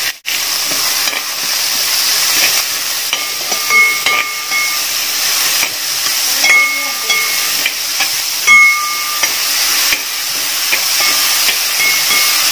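Chopped onions sizzling in hot oil as they are sautéed, stirred with a steel ladle that scrapes and clinks against the metal pan, giving short ringing scrapes several times over the steady sizzle.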